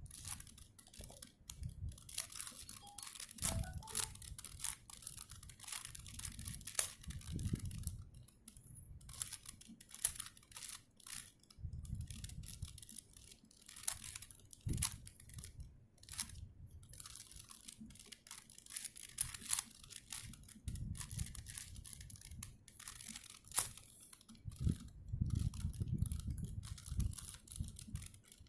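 4x4 Rubik's cube being turned by hand over and over: quick plastic clicks and clacks of its layers snapping round, in irregular runs, with low thumps from handling.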